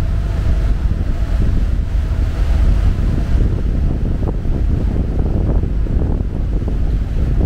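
Wind buffeting the microphone over a steady low rumble of water and the triple-deck ferry's engines as it docks on a spring line.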